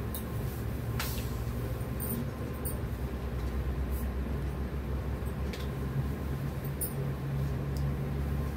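Steady low hum of a room air conditioner running, with short rustles and light clicks of silk sarees being handled and unfolded.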